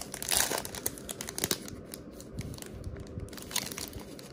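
A trading card pack's wrapper crinkling and tearing open, loudest in the first second and a half, then softer rustling as it is handled.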